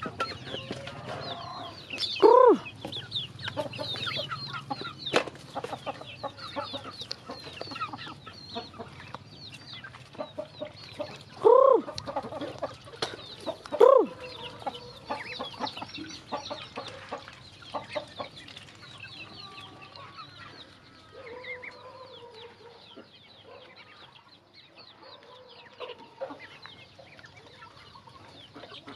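Flock of young chickens and ducklings peeping busily while pecking grain from a plastic pipe feeder, with short taps of beaks on the plastic. Three loud clucking calls stand out: once about two seconds in and twice close together near the middle. The peeping thins out later on.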